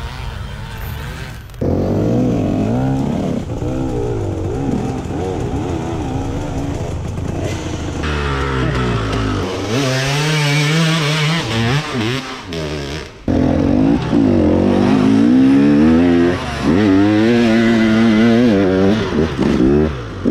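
Enduro dirt bike engine heard from the rider's helmet camera, revving up and down with the throttle as the bike climbs and picks its way through woods. It comes in several cut-together stretches after a short, quieter intro sting.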